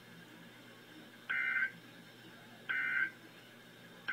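Emergency Alert System end-of-message data bursts: short, buzzy two-tone digital bursts, two in full about a second and a half apart, with a third starting at the very end. They signal the end of the alert message. A faint low hum lies beneath.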